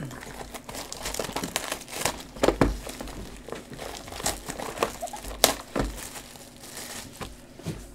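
Cellophane wrap on a box of trading cards crinkling with irregular sharp crackles as gloved hands handle the box.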